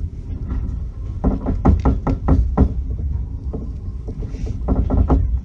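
Passenger train wheels clacking over rail joints, heard from inside the carriage: a steady low rumble with two quick clusters of sharp knocks, the first about a second in and the second near the end.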